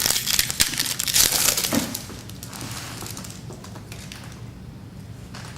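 Packaging of a trading card box being torn open: a dense crinkling and crackling for about two seconds, then quieter rustling and handling.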